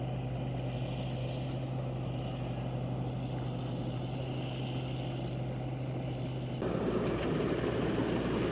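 The engine of a rice-harvesting tractor running with a steady low hum. About two-thirds of the way in, the sound changes suddenly to a louder, rougher noise.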